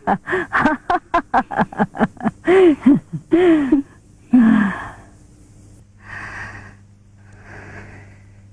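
A woman laughing: a quick run of short "ha"s that slows into two longer, drawn-out laughs, stopping about four seconds in. A short falling hum follows, then two faint breathy sounds.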